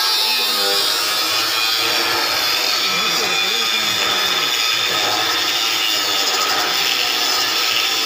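Handheld angle grinder with an abrasive cut-off disc cutting through a steel bar, a loud steady high-pitched grinding.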